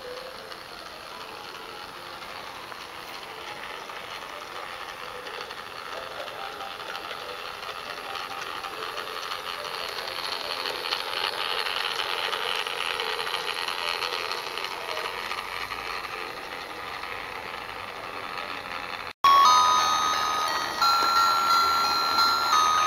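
Battery-powered toy model of Ivor the Engine running along garden railway track, a steady whirring of its motor and wheels that grows louder as it comes close and then fades as it moves away. About nineteen seconds in the sound cuts off abruptly and a bell-like tune starts.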